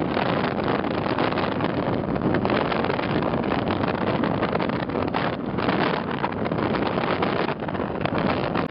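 Wind rushing and buffeting over the microphone, mixed with the running of motorcycles cruising at highway speed; steady, with a couple of brief lulls in the wind.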